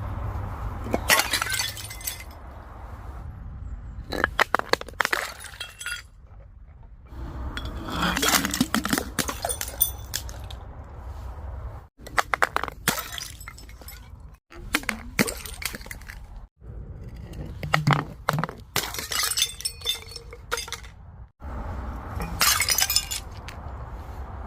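Glass bottles breaking: about seven separate bouts of sharp cracking, crunching and clinking of glass, each a second or two long, over a low steady hum.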